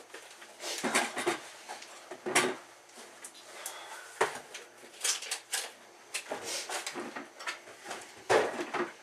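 Kitchen handling noise: irregular knocks, clatters and rustles of plastic containers and a lid being handled on a counter while a protein shake is made, a few louder knocks about a second, two and a half, four, and eight seconds in.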